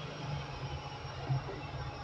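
Soft background music, a quiet passage carried mostly by low bass notes.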